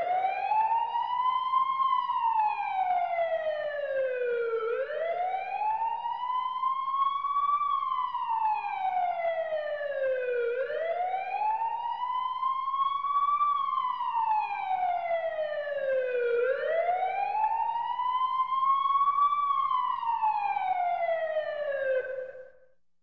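Emergency siren wailing: it rises in pitch over about two seconds, then falls more slowly. The cycle repeats four times, and the siren stops just before the end.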